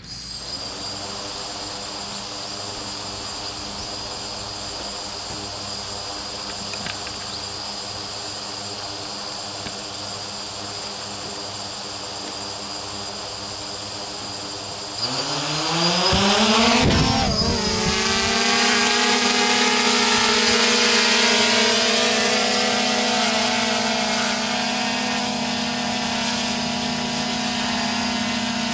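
DJI Phantom quadcopter with E-MAX 2213 935KV brushless motors and DJI 1038 propellers: the motors start and run at a steady low idle for about fifteen seconds, then spool up with a rising whine. The drone lifts off with a brief rush of prop wash and settles into a steady hover hum.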